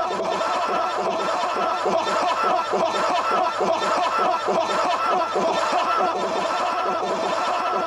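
Eerie forest sound-design ambience: a dense, unbroken mass of short overlapping chittering calls, rather like distorted snickering, over a steady low drone.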